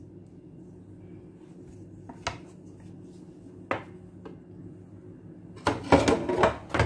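A wooden spatula knocking a few times against a baking dish, then a louder run of scraping and clatter near the end as it cuts and lifts a portion of gratin, over a steady low hum.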